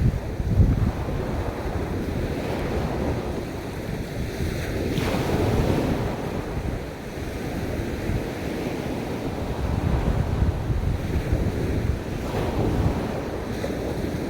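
Ocean waves breaking and washing up a beach, with one wash swelling about a third of the way through, and wind rumbling on the microphone.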